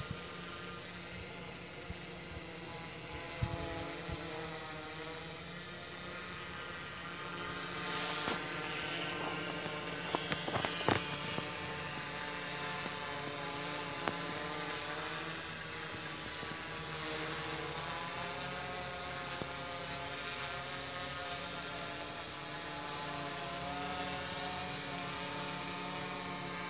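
F450 quadcopter's motors and propellers whirring steadily as it hovers overhead, their pitch wavering as the motor speeds adjust. A few short clicks about a third of the way in.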